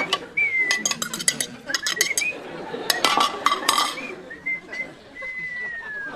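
A person whistling a wavering tune, with a string of sharp clicks and clinks from things being handled.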